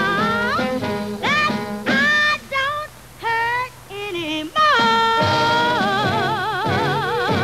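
A woman singing short, sweeping phrases over a jazz band accompaniment, then holding one long note with a wide vibrato for the last few seconds.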